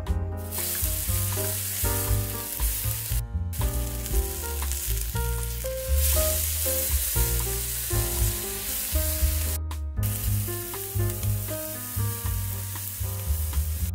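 Beef slices searing in smoking-hot oil in a wok, a loud, steady sizzle that starts about half a second in, with tongs turning the meat. The sizzle cuts out briefly twice.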